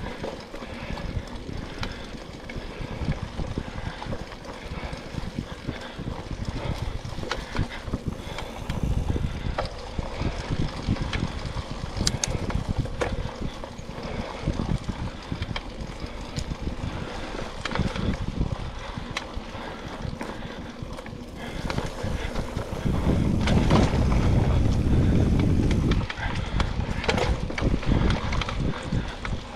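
Mountain bike rolling along dirt singletrack: tyres on the trail, with the chain and frame knocking and rattling over bumps. Wind rumbles on the microphone, loudest for a few seconds near the end.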